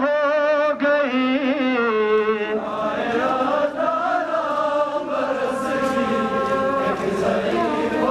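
Male voice chanting a mourning lament (noha) in wavering, held notes. About two and a half seconds in, the chant goes on in longer, smoother phrases with the fuller sound of a group of voices.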